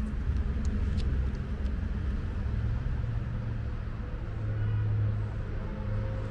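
A steady low engine rumble, as of a motor vehicle running nearby. A few faint clicks about a second in fit the cat chewing its wet food.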